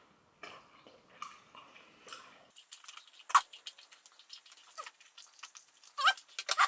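Wet chewing and smacking of a huge wad of chewing gum in a full mouth: soft puffs of breath at first, then a run of sharp wet clicks and squelches, the loudest a snap about halfway through and a burst near the end.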